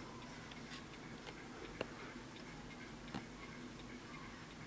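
Antique French mantel clock movement (c. 1855, Vincent) ticking faintly and steadily, with a few louder clicks among the beats.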